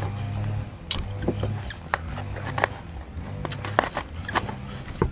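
Close eating and handling sounds: a woven bamboo sticky-rice basket being handled and rice pulled from it, with sharp clicks and taps, and chewing. Under it runs a steady low drone from a distant engine.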